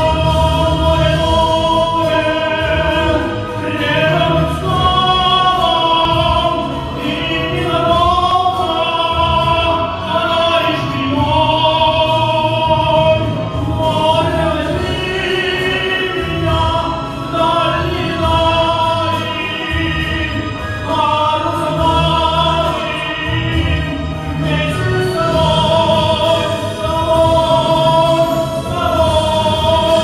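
A song performed live: a voice singing long held, wavering notes at a microphone over instrumental accompaniment with bass.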